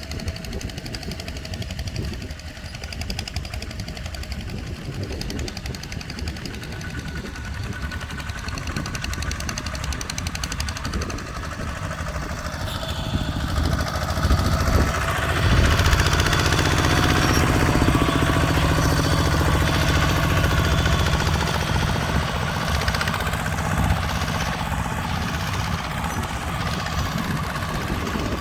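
Tractor engine running under load with a knocking, chugging rumble. It grows louder about halfway through and then eases off a little.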